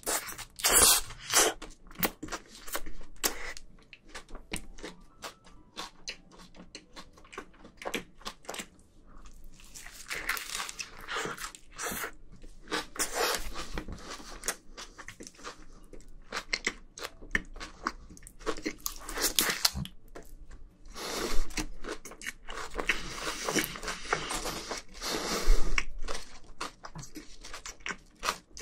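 Close-miked chewing and bites of a chicken snack wrap, a tortilla wrapped around fried chicken, in irregular wet and crunchy mouthfuls. The louder stretches come near the start and in the second half.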